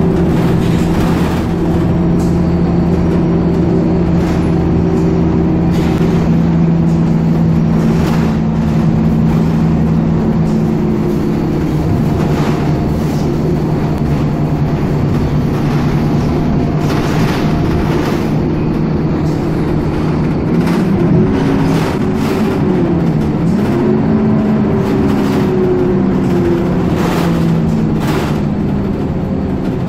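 Scania K270UB city bus heard from inside the cabin: its five-cylinder diesel engine runs steadily under way, with occasional knocks and rattles from the body. About two-thirds of the way through, the engine note falls and then climbs again as the bus eases off and pulls on.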